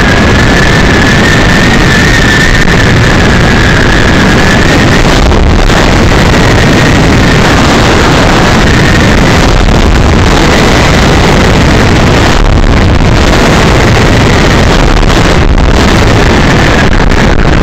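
Loud wind rush buffeting the microphone of a bike ridden at highway speed, mixed with road noise. A faint, steady high whine runs underneath.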